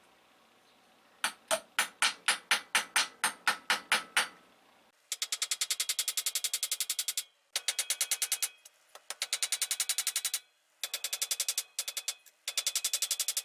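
A series of sharp clicks: about a dozen at roughly four a second, then fast runs of ringing clicks at about ten a second, in several bursts with short gaps.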